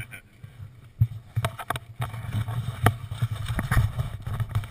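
Rumbling and knocking on an action camera's microphone as its wearer moves about, with irregular crunches of footsteps on gravel, busier from about halfway through.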